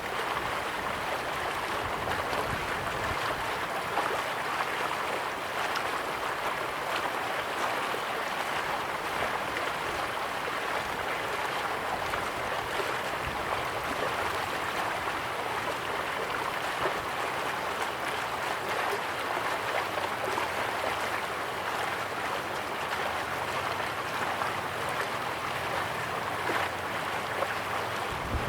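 Running water, a steady, even rush with no breaks.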